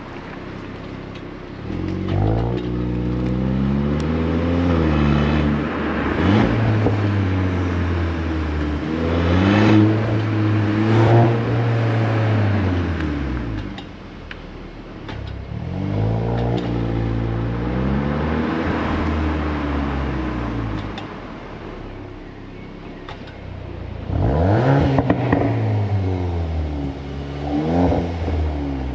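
VW Golf 8 R's 2.0-litre turbocharged four-cylinder running through its factory Akrapovič exhaust, accelerating hard in several pulls. The note rises and drops back at each gear change, with quieter stretches between the pulls.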